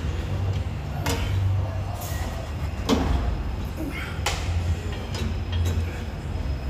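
Gym leg extension machine in use: three sharp clanks, about every second and a half, over a steady low rumble.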